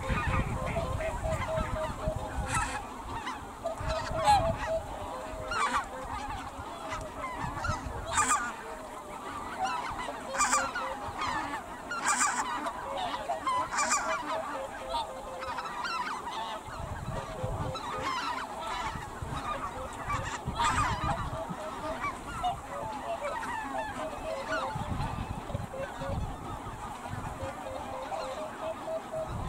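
A flock of snow geese calling continuously in a dense, overlapping honking chatter, with sharper, higher calls standing out every second or two.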